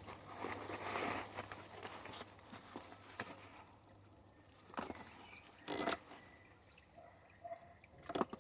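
Rustling and crinkling of packaging wrap being handled as a boxed plant is unwrapped, steady for the first few seconds, then a few short separate rustles.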